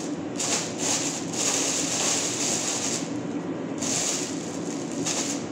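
Thin plastic bag rustling and crinkling in irregular bursts as it is handled and filled, over a steady low hum.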